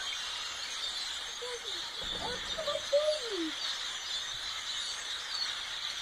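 A large flock of black birds calling all at once from the trees, a dense, continuous high-pitched chatter. A few lower gliding sounds stand out in the middle.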